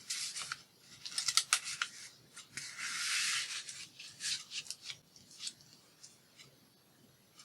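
Paper scraps rustling and sliding as they are handled, with a few sharp crinkles and taps. It fades much quieter after about five seconds.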